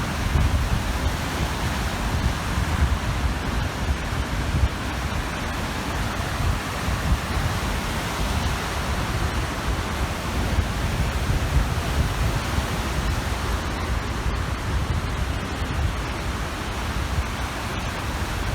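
Small waves washing onto the shore, a steady rushing noise, with wind buffeting the microphone as a fluctuating low rumble underneath.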